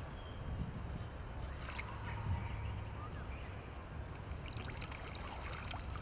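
River water running and sloshing as a landing net and a hooked grayling move in the shallows, with a few small splashes over the steady flow.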